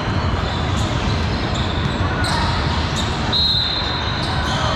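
Basketball game on a hardwood court: a ball bouncing and sneakers squeaking over a steady background din of players and spectators, with one short high sneaker squeak about three and a half seconds in.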